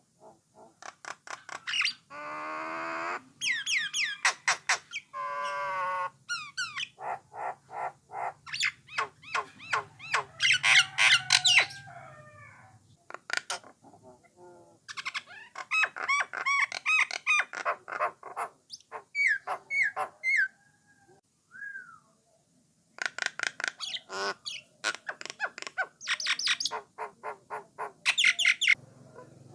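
Jalak nias (common myna) singing a long, varied song: runs of rapid clicks, whistles, harsh squawks and gurgling warbles, broken by a couple of short pauses.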